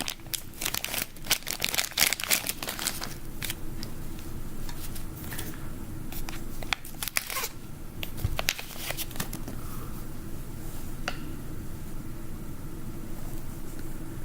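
Packaging crinkling and tearing by hand as a bullion piece is unwrapped. Dense crackling comes in clusters through the first half, thinning to a few isolated clicks later.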